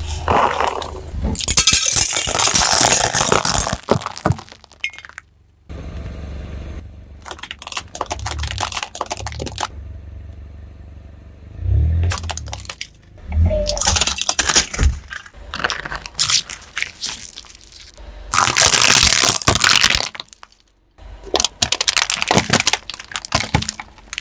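A car tyre rolling slowly over one object after another and crushing it: a string of separate cracking, crunching and popping bursts with short pauses between. Water-gel beads squash and pop under the tread, and around the middle a plastic TV remote control cracks apart.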